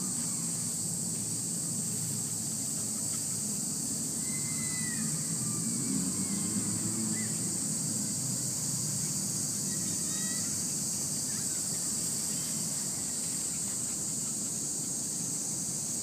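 A steady, continuous high-pitched insect chorus, with a low rumble underneath and a few short chirps about four to ten seconds in.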